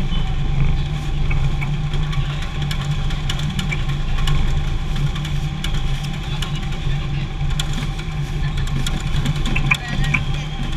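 Steady low hum of packhouse conveyor machinery on a kiwifruit packing line, with scattered light clicks and knocks over it.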